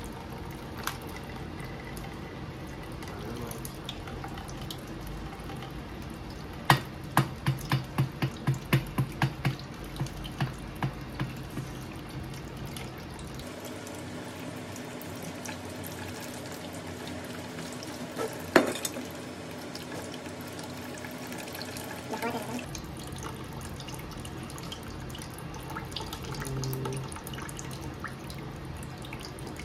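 Coconut water dribbling and dripping from a cracked coconut into a plastic container in a steel sink. About a quarter of the way in comes a quick run of roughly a dozen sharp knocks, about three a second, and about two-thirds in one more sharp knock, both on the coconut as it is cracked further open.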